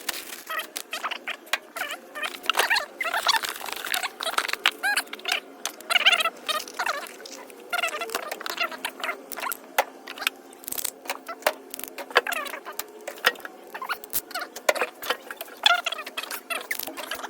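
Metal hand tools clinking and clattering as they are picked up, sorted and set down, with many quick sharp knocks throughout.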